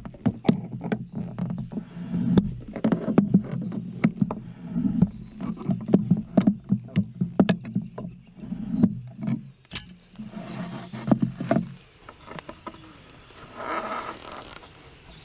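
Anchor drive rod being pried up out of the ground with pliers: repeated clicks and knocks over a low creaking and grinding, dying away about twelve seconds in.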